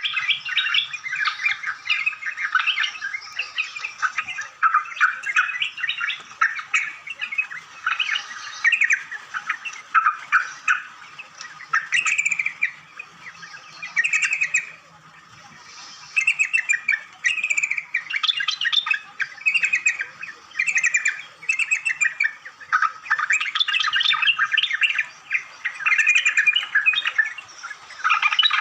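A flock of small birds chirping and twittering together: a dense, busy chorus of short chirps that thins briefly about halfway through.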